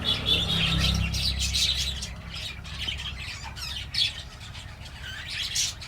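Lovebirds chirping and squawking in quick, repeated short calls, over a low rumble during the first two seconds.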